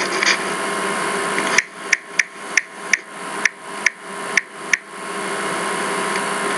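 A run of about ten sharp taps, irregularly spaced over about three seconds in the middle, over a steady hiss.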